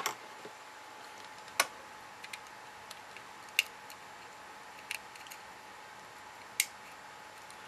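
Small metal tools, tweezers and a fine screwdriver, clicking against the circuit board and pickup wires of an HO-scale model rail car while prying the board end free. About five sharp, separate clicks a second or two apart, with a few fainter ticks between.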